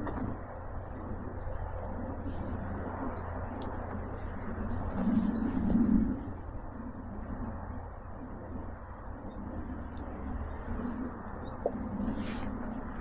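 Woodland birds chirping with many short, high calls, over a steady low rumble and some lower swelling sounds that are loudest about five to six seconds in.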